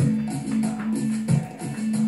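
Dance music with a steady beat and a sustained bass line.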